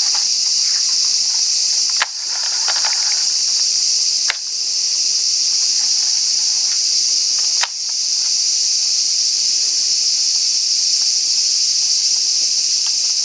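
Loud, steady high-pitched chorus of insects, with three short sharp clicks about two, four and eight seconds in.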